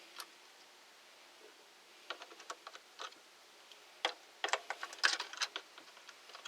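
Light clicks and taps of plastic parts of a cordless hedge trimmer being handled and fitted together, scattered at irregular intervals and thickest from about four to six seconds in.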